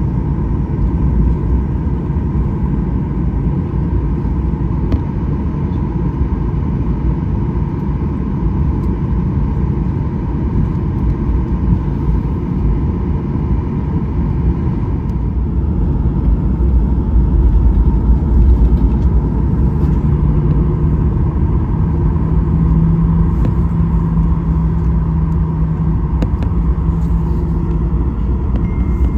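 Steady low rumble inside the cabin of a Boeing 737-800, with a steady hum through it; a second, lower hum joins about twenty seconds in.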